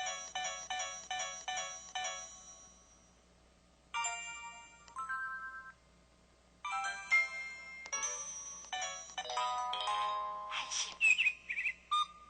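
Samsung SCH-V940 mobile phone previewing its built-in sound effects through its speaker: a series of short electronic jingles with pauses between them. First a quick run of repeated beeping notes, then a brief jingle about four seconds in, then a busier melodic sequence from about seven seconds.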